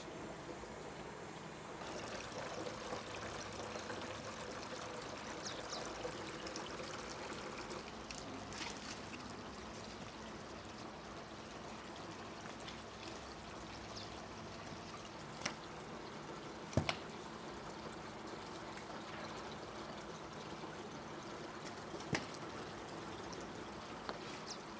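Water running and trickling steadily, with a few sharp knocks now and then.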